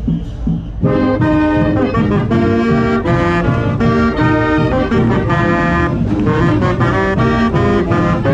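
College marching band playing: drums tap out a beat, then the full band of brass and saxophones, the tenor saxophone close by, comes in together about a second in and carries a tune with sustained chords.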